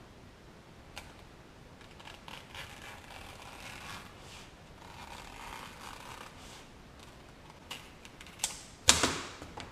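Cutting the steel bead wire out of a 14-inch bicycle tire by hand: scattered small clicks and faint scraping of tool on rubber. A loud sharp snap comes about nine seconds in, with a smaller one just before it.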